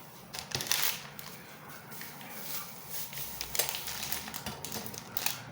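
Kitchen handling noises: a series of irregular clicks and knocks with some rustling between them, loudest about half a second to a second in.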